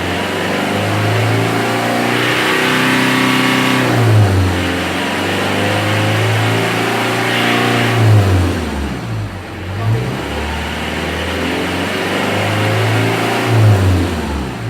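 Mitsubishi L300's 4D56 diesel engine free-revving in a black-smoke test. It is revved up and held for a few seconds, then let drop back, about three times.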